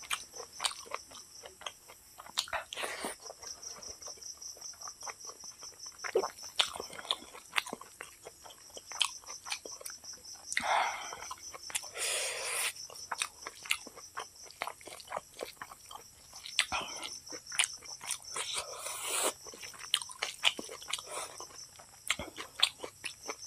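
Close-up eating sounds from a person eating rice with dal and pork curry by hand: wet chewing and lip smacks, and fingers squishing and mixing rice on a steel plate. These come as many short clicks, with a few longer wet bursts. A steady high-pitched whine runs behind them.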